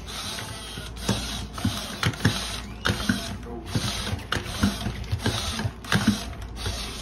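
Robot dogs moving on a hardwood floor: the geared leg motors of an I-Cybie and a Sony aibo whirring, with hard feet knocking irregularly on the boards, about twice a second.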